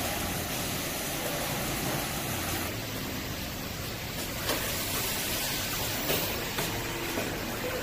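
Steady machine noise of an automated robotic palletizing and roller-conveyor line, with several short clicks or clacks in the second half.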